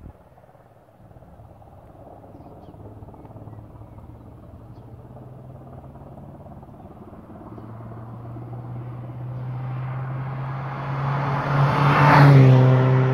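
A road vehicle approaching and passing close by: its engine hum grows steadily louder and peaks with a rush of road noise near the end, then starts to fade.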